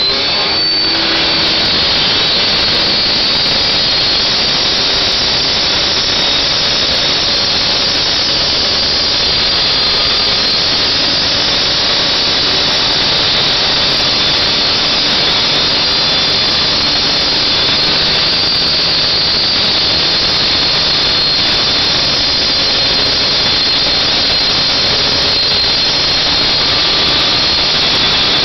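Stihl two-stroke cut-off saw held at full throttle, its diamond blade grinding through gravel aggregate on tar and 3/4-inch plywood roof decking. A loud, steady, high-pitched whine and grind.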